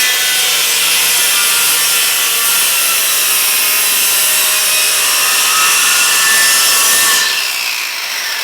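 Power saw running steadily while cutting wood trim. The sound thins out and drops a little about seven seconds in.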